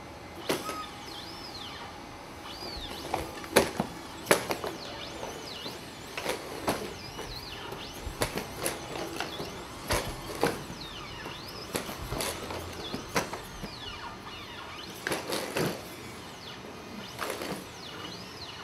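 Boston Dynamics Atlas humanoid robot's hydraulic actuators whining in short rising and falling glides, with sharp knocks at irregular intervals as its feet and hands strike the floor during gymnastic moves; the loudest knocks come about four seconds in.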